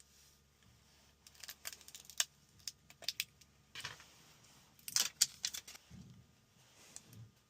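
Irregular small clicks, taps and light scrapes of hand tools and parts on a phone during an iPhone 13 battery replacement.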